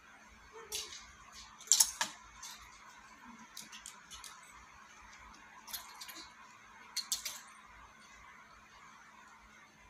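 Clothes hangers clicking and clacking against a clothing rack rail as garments are pushed along and lifted off, in short clusters of clacks, the loudest about two seconds in, over a steady faint hum.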